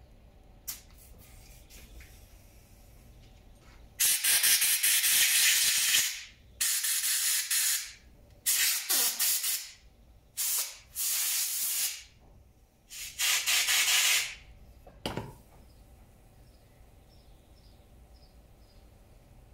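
Compressed-air blow gun fired in about six short blasts of hissing air, the first the longest, then a single knock. The blasts are blowing out small backpack-sprayer parts that are being cleaned for an overhaul.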